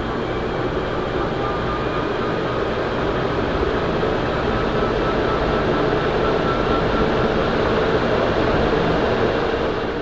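Edison Model 224528 stamped-motor spinner ceiling fan spinning up after being switched on: a steady rush of moving air with a faint motor whine that rises slowly in pitch, the whole growing gradually louder.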